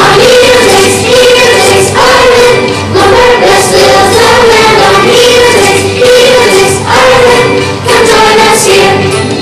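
Children's choir singing a musical number together over instrumental accompaniment.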